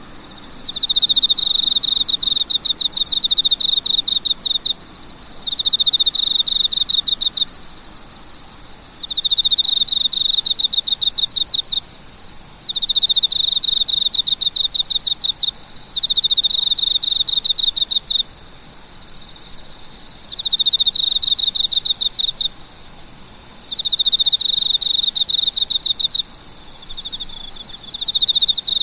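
A cricket chirping: rapid trains of high-pitched pulses in bouts of a few seconds, with short pauses between, over a steady high-pitched ringing in the background.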